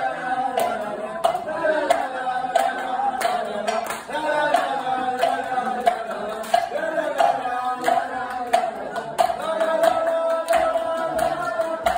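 A group of women singing together to an acoustic guitar, with steady hand clapping at about three claps every two seconds. Near the end the voices hold one long note.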